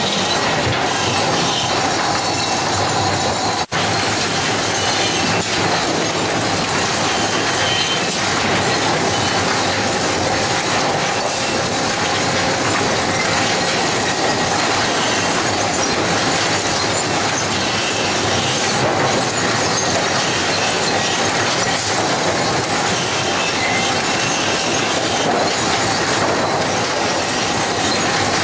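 Sawmill lumber conveyors running: a loud, continuous clatter and rattle of steel chains and boards moving along the transfer decks, with some metallic squealing. The sound cuts out for an instant about four seconds in.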